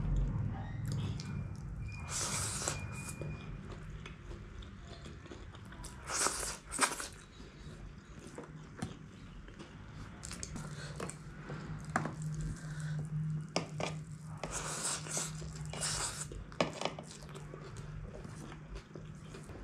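Close-up eating sounds of egg chow mein being eaten by hand: chewing, with a few louder noisy bursts and scattered clicks, over a low steady hum.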